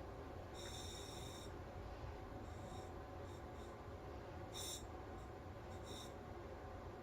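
Breathing through a SMACO full-face diving mask's demand regulator out of water. Each breath draws a short hiss of air with a whistly edge, at uneven intervals; the longest comes about a second in and the sharpest just before the five-second mark.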